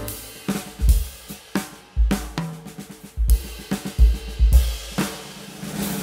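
Background music led by a drum kit beat: kick drum thumps with snare and cymbal hits over sustained notes.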